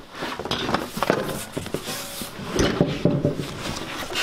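Wooden tabletop and metal legs of an industrial sewing table knocking, clattering and scraping as the table is handled and shifted, with a busier cluster of knocks a little past the middle.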